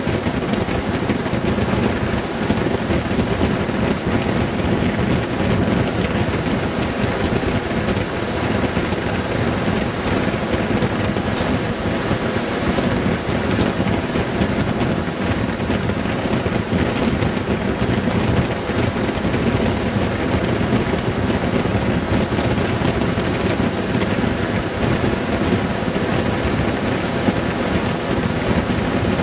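Wind rushing over the microphone at cruising speed on a Honda Gold Wing 1800, with the steady drone of its flat-six engine underneath.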